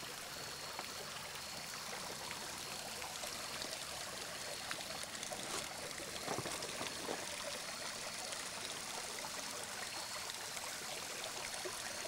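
Shallow creek water running and trickling over shale rock ledges, a steady even rush, with a couple of faint knocks about six seconds in.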